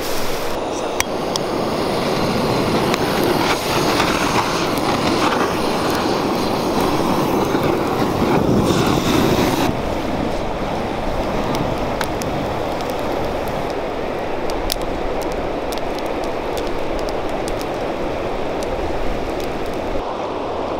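A heap of straw burning: a steady rushing noise with crackles and pops. About halfway through the rushing drops away and scattered crackling continues over a quieter hiss.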